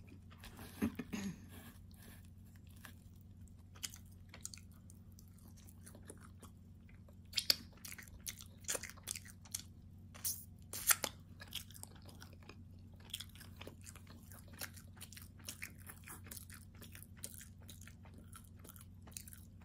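A person chewing and biting calzone crust close to the microphone: irregular wet mouth clicks and crunches, louder in the middle.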